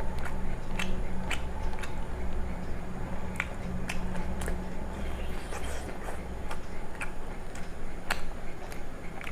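Close-miked chewing and wet mouth clicks of someone eating rice pulao and chicken gravy, irregular sharp clicks over a steady low hum.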